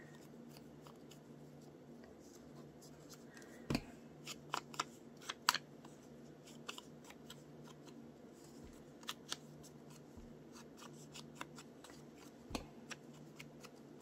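Faint scattered taps, scuffs and paper rustles as an ink blending tool is dabbed around the edges of a paper cut-out leaf held in the fingers, with a few sharper clicks about four to five seconds in, over a low steady hum.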